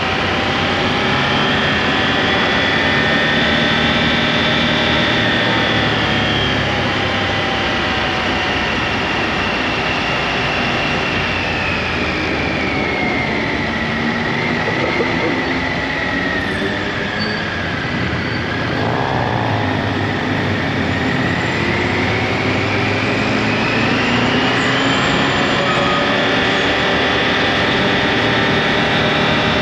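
Triumph motorcycle engine running under way, with wind noise over the bike. The engine note falls about halfway through as the rider eases off, then climbs again a few seconds later as he accelerates.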